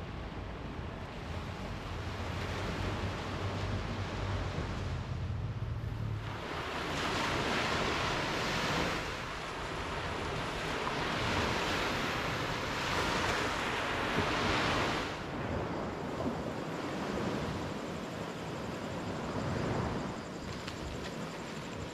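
Ocean surf on a beach: waves washing in as a steady rush that swells and falls back several times. A low rumble sits under it for the first six seconds.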